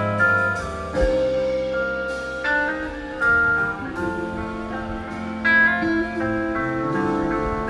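Live rock band playing an instrumental passage: electric guitars hold sustained, changing notes over bass guitar and drums, with occasional drum and cymbal hits.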